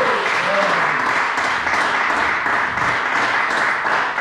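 A small crowd clapping steadily, with a voice or two calling out near the start.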